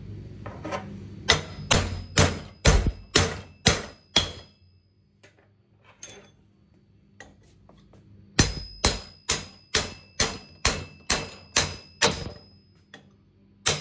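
Hammer striking a steel pin punch, driving a pin into the steel body of a downhole running tool until it sits flush. The blows come about two a second with a short metallic ring: a run of about eight, a pause of some four seconds, then about ten more and a last single blow near the end.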